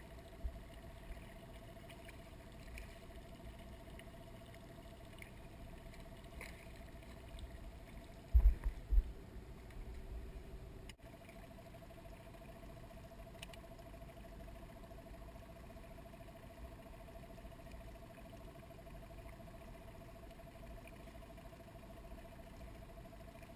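Muffled, quiet small-boat ambience with a faint steady hum, broken by a few loud low knocks in quick succession about eight and a half seconds in, like bumps against the boat's hull.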